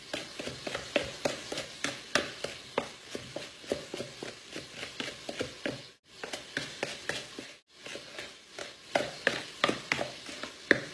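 Wooden spoon stirring thick cornbread batter in a mixing bowl, knocking and scraping against the bowl about three times a second, with two brief pauses around halfway.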